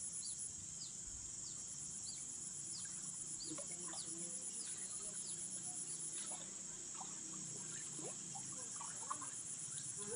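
Steady high-pitched insect chorus with a fast pulse, like crickets or cicadas. Short falling chirps repeat about twice a second through the first half, with faint irregular splashing from people wading in the pond.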